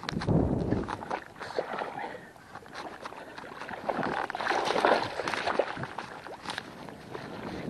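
Water splashing and sloshing in irregular surges, with a loud surge at the start and another about four to five seconds in, from a hooked sea bass being played close in near the end of the fight.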